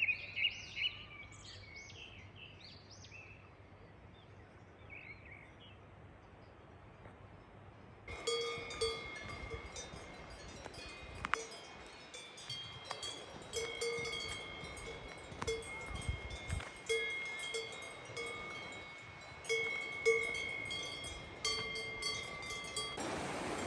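Swiss cowbells clanking irregularly as grazing cows move, many overlapping ringing strikes starting suddenly about a third of the way in. Before that, a few bird chirps over quiet outdoor air.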